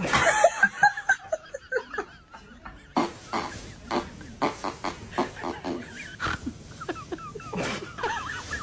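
People laughing and snickering in short bursts, with a few sharp clicks; a steady hiss comes in about three seconds in.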